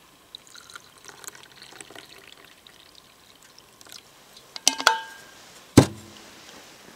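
A hot drink trickling softly out of a stainless steel vacuum flask into its metal cup. About four and a half seconds in come a few sharp, ringing metallic clinks as the flask is closed, then a loud knock as the flask is set down.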